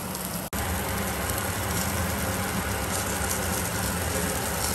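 Tomahawk steaks and sausages sizzling on a grill over glowing coals: a steady hiss with a low rumble underneath. The sound drops out for an instant about half a second in, then carries on a little louder.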